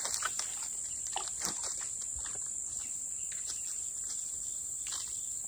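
Steady, high-pitched chorus of insects from the swamp woods, with a few faint short clicks and rustles.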